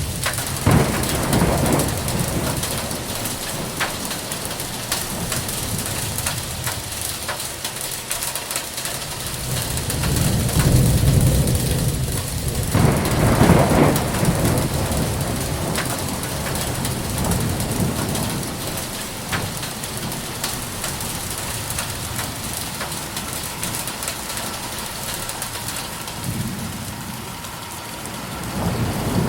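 Hailstorm: a dense clatter of hailstones and rain pelting down, with rolls of thunder swelling under it, the loudest about ten to fourteen seconds in.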